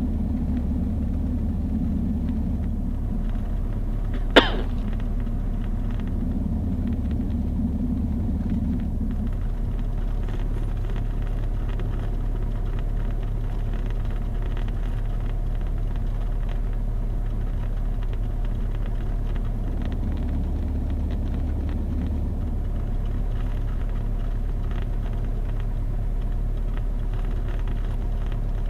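Cessna 172 Skyhawk's piston engine and propeller running at low taxi power, a steady low drone heard from inside the cockpit. A single sharp click comes about four seconds in.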